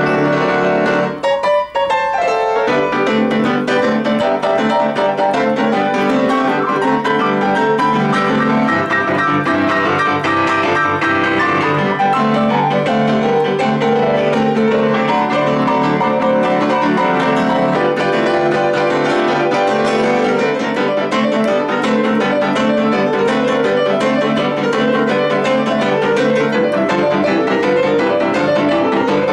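Steinway Model D concert grand piano played solo in boogie-woogie style: dense chords over a steady, busy bass line, with a brief break about a second and a half in.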